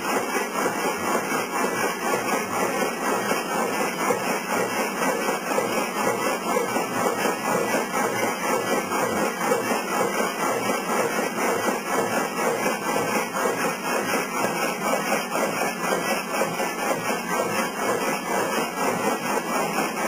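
Historic belt-driven sawmill machinery running: an old electric motor turning the overhead line shaft, pulleys and drive belts, with a steady fast clatter that does not change.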